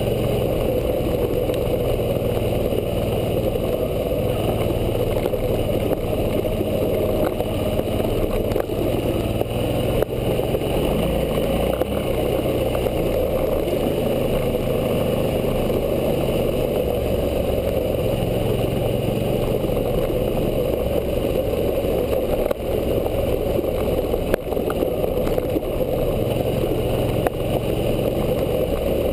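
Suzuki V-Strom 650's 645 cc V-twin engine running as the motorcycle is ridden along a gravel trail, its pitch shifting now and then with throttle and gears. A few sharp clicks sound over it.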